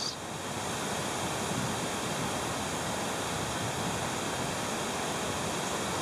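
Steady, even rushing outdoor background noise with no distinct sounds in it.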